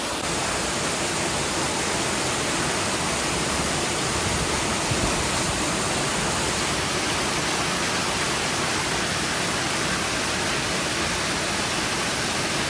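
Water from the Universal globe fountain pouring down its circular stepped tiers: a steady, even rushing of water.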